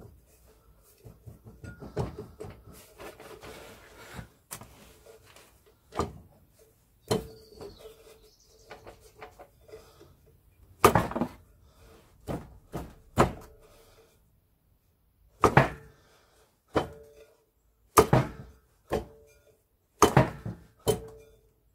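Rusty transmission brake drum on a Land Rover Series gearbox output shaft being rocked and wiggled by hand, stuck and not coming off. It starts as soft scraping and rattling, then from about halfway gives a run of sharp metal clunks, each with a short ring from the drum.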